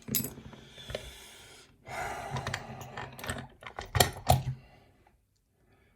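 Clicking and rattling of a just-picked challenge lock and metal picking tools being handled, with two longer rattling stretches in the first few seconds and a few sharp clicks about four seconds in.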